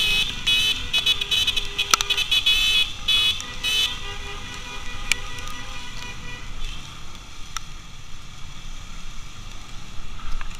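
Horns honking in a rush of short, rapid toots for about the first four seconds, over the steady running of the motorcycle engines and road noise. After that only the engines and road noise carry on.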